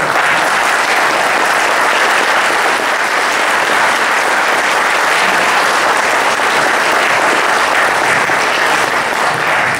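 Audience applauding: a steady round of clapping for about ten seconds.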